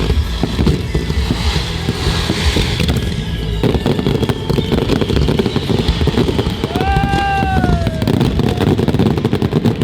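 Fireworks display: a dense run of booms and crackling bangs, with music playing underneath and a short falling whistle about seven seconds in.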